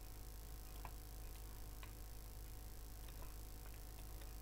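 Quiet room tone with a steady electrical hum, broken by a handful of faint, irregular computer-mouse clicks.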